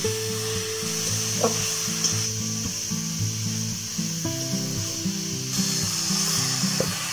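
Instrumental background music with held, changing notes, over a steady sizzling hiss and the occasional scrape of a metal spatula stirring grated coconut and sugar in an aluminium karahi.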